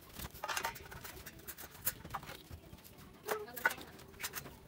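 A few scattered light clicks and taps as a steel ruler and small tools are handled on a concrete floor.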